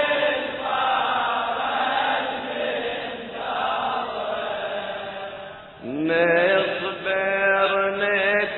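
A man chanting a Shia latmiyya elegy in long, drawn-out notes. After a short dip about six seconds in, the voice comes back louder, gliding up into a held note.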